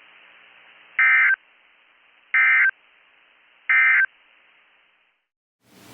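Emergency Alert System SAME end-of-message data tones: three short, identical buzzing bursts about 1.4 s apart, signalling that the alert message is over. They sit over faint radio hiss, which drops out near the end and gives way to new broadcast noise.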